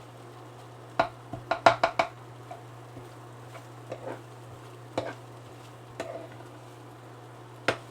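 A utensil stirring in a cooking pot of rice and onions: scattered sharp clinks and scrapes against the pot, a quick cluster between one and two seconds in and single knocks after, over a steady low hum.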